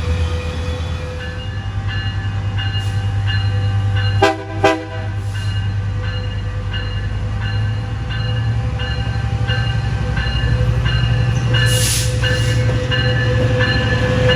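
Train running past with a steady low rumble, its locomotive horn sounding two short blasts about four seconds in, and a regular clicking about twice a second.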